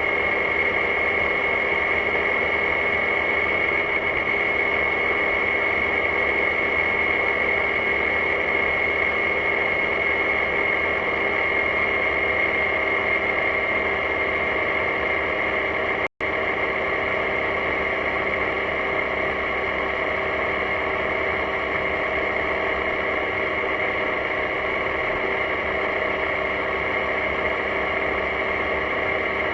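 BMW C650GT maxi-scooter riding at a steady cruising speed: a constant rush of wind and road noise with a steady high whine and the engine running underneath. The sound cuts out for an instant about halfway through.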